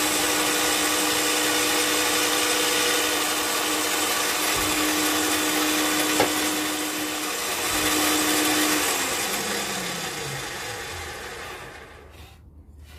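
Benchtop pillar drill running, very noisy, as it bores dowel holes in wood, with one sharp click about six seconds in. About nine seconds in it is switched off and the motor winds down, falling in pitch and fading out near the end.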